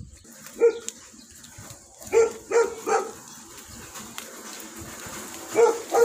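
A dog barking in short, sharp barks: one, then three in quick succession, then two more near the end.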